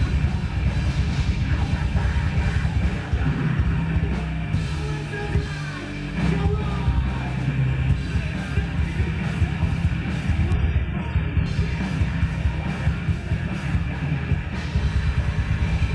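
Loud heavy rock music, dense and driving, with the top end briefly dropping out about ten seconds in.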